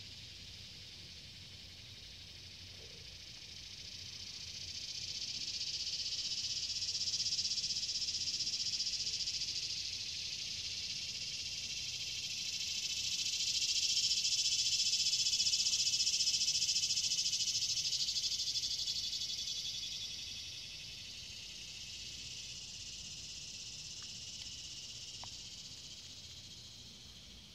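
Insect chorus in the swamp: a steady high buzz that swells a few seconds in, peaks about halfway through and slowly fades toward the end.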